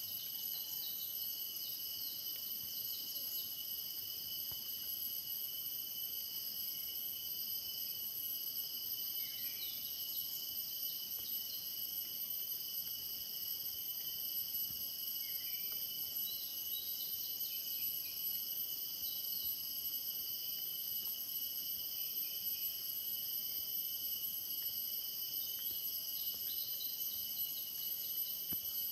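Steady chorus of singing insects: several high-pitched continuous trills layered together, unbroken throughout, with a few faint short chirps now and then.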